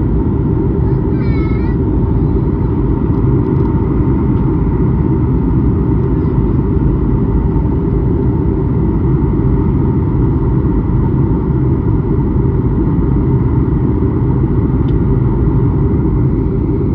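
Steady airliner cabin noise in flight, the low rumble of engines and airflow heard from a seat by the window, with a faint steady hum over it.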